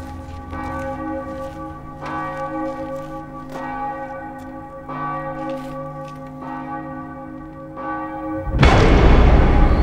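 Large church bell tolling slowly, struck about every second and a half, its ringing hanging on between strokes. Near the end, a sudden loud burst of noise drowns it out.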